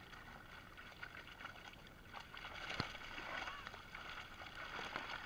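Water splashing and sloshing as a netful of live fish thrashes in a cast net being hauled in by hand, growing louder about two seconds in. A single sharp knock comes near the middle.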